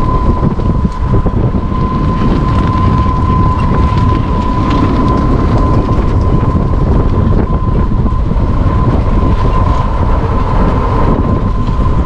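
Rumble of an open-sided cart rolling along a path, with heavy wind buffeting the microphone and a steady high-pitched whine held at one pitch throughout.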